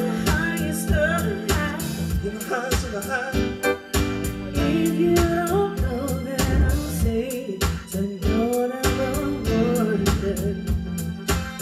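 Soul music: a singer over a band with bass and drums keeping a steady beat.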